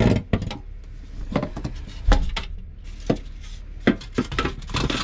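Irregular knocks, bumps and rustles of a person wriggling about in a cramped boat compartment and handling hoses and fittings, over a low steady hum.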